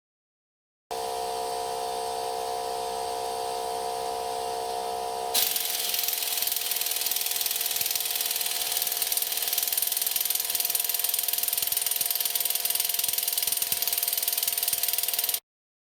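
Air-powered wrench running on a seized front hub nut: a steady whine of several tones, then about five seconds in a louder hissing, rapidly pulsing rattle. It does not break the nut loose, for lack of air pressure.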